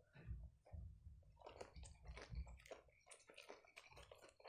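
Faint chewing of a mouthful of sushi roll: soft, wet, squishy mouth sounds with many small clicks.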